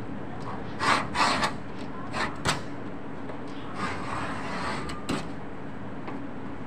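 Hand knife scraping and cutting a piece of sheet material on a work table. A quick run of short scraping strokes comes about a second in, then a softer, longer rub near four seconds and one more short stroke after five, over a steady low hum.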